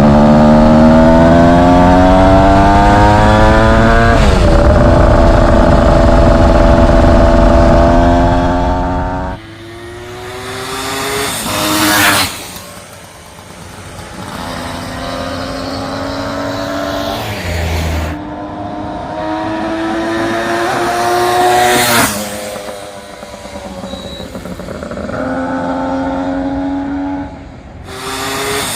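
Suzuki GT380's air-cooled two-stroke three-cylinder engine under way. For the first nine seconds it is loud, rising in pitch through a gear change about four seconds in. Then it comes past three times, each pass swelling to a sharp peak and falling away.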